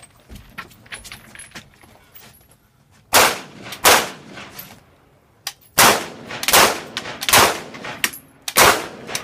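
Semi-automatic AR-15-style carbine fired in slow, single aimed shots: two shots about three seconds in, a pause of about two seconds, then a steady string of shots roughly one a second to the end, each with a short echoing tail.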